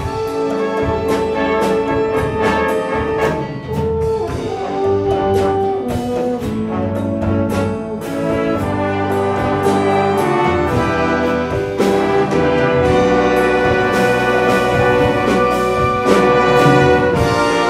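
An orchestra playing, with brass prominent: held chords that change every second or so, with percussion strokes through them.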